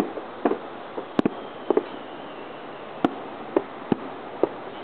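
Aerial firework shells bursting at a distance: about ten sharp bangs at irregular intervals, some in quick pairs, over a steady background hiss.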